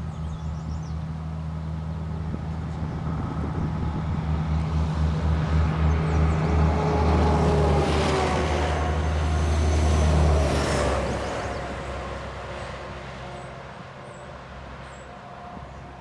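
A motor vehicle driving past: a low engine hum builds up, is loudest about ten seconds in, and fades away as its pitch slides down.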